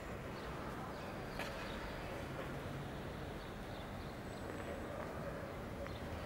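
Steady ambient background noise with a few faint, scattered taps.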